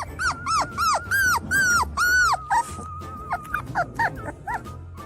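A dog vocalising in a quick run of high yowls that rise and fall in pitch, about four a second. In the second half these give way to shorter, quieter yips, like a dog 'talking back'.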